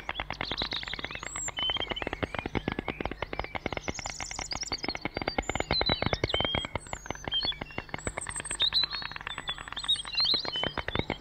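White storks clattering their bills: a fast, continuous rattle of clicks that swells and eases, with small birds chirping high above it.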